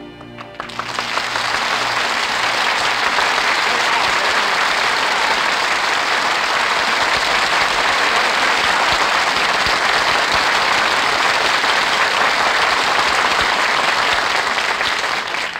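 Studio audience applauding steadily, starting about half a second in as the last notes of the orchestral song die away and stopping suddenly near the end.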